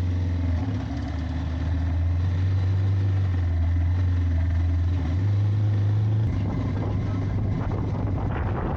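Motorcycle engine running steadily. Its pitch steps up about five seconds in, and it turns rougher, with more wind and road hiss, over the last couple of seconds.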